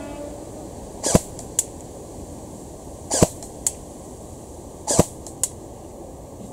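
G&G GR25 airsoft electric rifle (AEG) firing three single shots about two seconds apart. Each shot is a brief whir of the gearbox cycling that ends in a sharp crack. A fainter sharp tick follows each one about half a second later.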